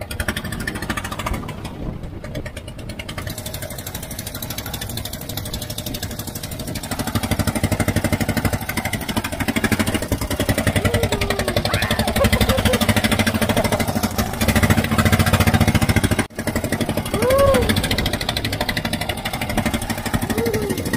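Outrigger boat's engine running steadily under way, a fast chugging pulse with wind and waves splashing along the hull. It gets louder about a third of the way in.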